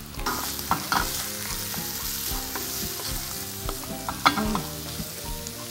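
Deboned oxtail with onions, peppers and carrots sizzling in a frying pan while a wooden spatula stirs and scrapes through it, with one sharper knock about four seconds in.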